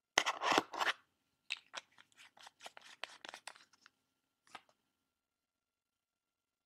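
Close handling of a small makeup pigment jar while swatching: a rustling scrape in the first second, then a run of short crisp scrapes at about four a second, and one more about four and a half seconds in.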